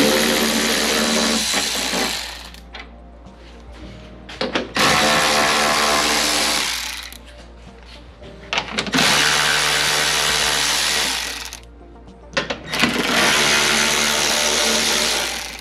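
Milwaukee cordless electric ratchet with a 10 mm socket running in four separate runs of about two and a half seconds each, backing out headlight mounting bolts.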